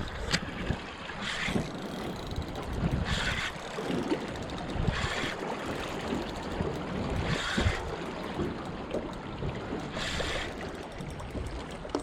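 Water and wind sounds around a small boat, a steady wash with short hissing surges about every two seconds.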